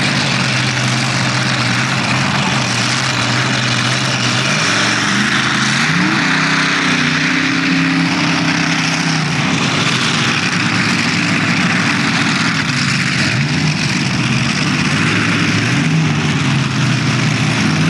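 Multi-engine modified pulling tractor idling at the start line, its engines taking a rising throttle blip about five seconds in that holds for a few seconds before dropping back to idle, with smaller blips later.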